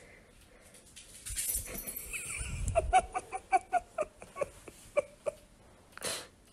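A rustling scuffle, then a quick run of about a dozen short, high yips from a small dog, about four a second, with a brief breathy puff near the end.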